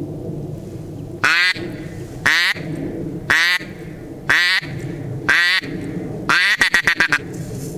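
Hen duck quacking loudly: five evenly spaced quacks about a second apart, then a quick run of short quacks near the end.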